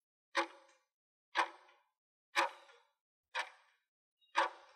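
Countdown timer tick sound effect: sharp clock-like ticks, one per second, five times, each dying away quickly, marking the seconds of the answer countdown.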